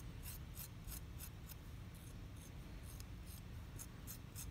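Serrated steak knife scratching the outside of a soft clay coil vase in quick, faint, rhythmic strokes, about three or four a second, scoring the surface to blend the coils together.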